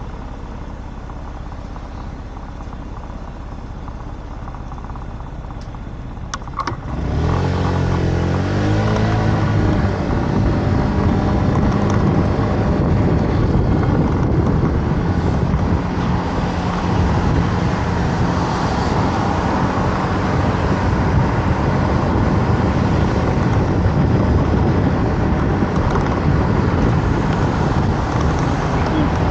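Scooter engine idling at a stop, then revving up and pulling away about seven seconds in, its pitch climbing in steps as it gathers speed; it then runs steadily at cruising speed with road and wind noise rushing over the microphone.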